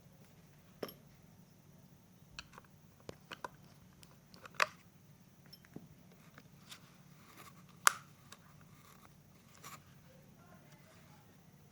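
Scattered sharp clicks and taps of hard parts and tools being handled while a device is taken apart, two of them louder about a third and two-thirds of the way in, over a faint low hum.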